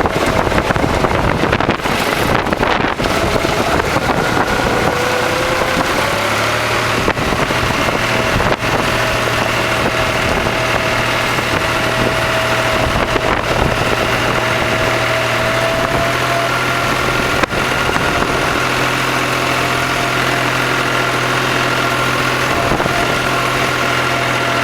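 Tractor engine running steadily, its pitch rising a little about five seconds in and then holding even.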